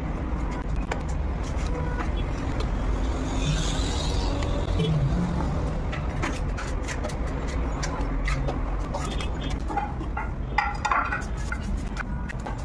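Steel trowel scraping and tapping as wet mortar is spread along a door threshold and dabbed onto a marble slab, a run of short clicks and scrapes over a steady low rumble.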